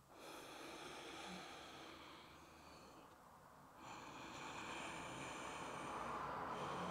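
Soft, slow breathing, two long breaths with a short pause between them, the second louder.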